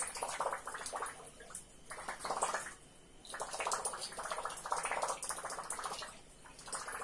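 Handmade mini Whopper Plopper topwater lure drawn through water in short pulls, its spinning tail churning and gurgling with a rapid rattling plop on each pull, several times over.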